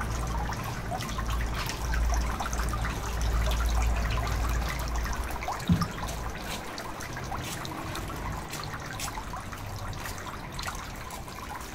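Water trickling and splashing into a shrine's water basin (chōzuya) from its spouts, over a low rumble, with a single thump about halfway through.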